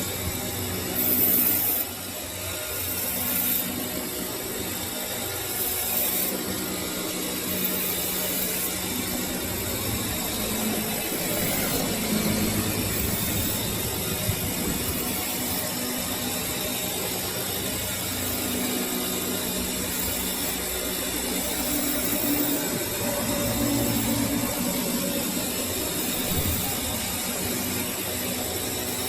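Metal lathe running steadily with a continuous motor hum while machining a steel shaft.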